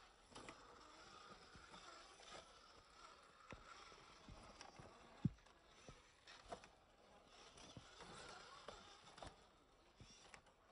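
Faint clicks and knocks of an Axial Capra 1.9 RC crawler's tyres and chassis on rock as it climbs slowly over ledges, with one sharper knock about five seconds in.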